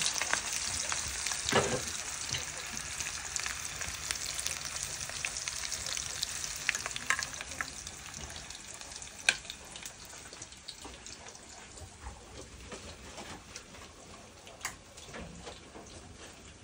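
Green plantain pieces frying in a pan: a steady sizzle with scattered sharp pops, growing gradually quieter.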